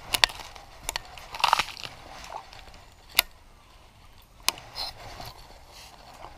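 Crunching and crackling of dry leaf litter underfoot, with a handful of separate sharp clicks from rod and reel being handled.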